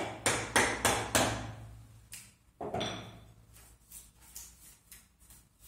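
Mallet striking a wood chisel into a pine board: five quick blows about a third of a second apart, then a single louder knock with a brief ring about two and a half seconds in, followed by light clicks of the chisel working the cut.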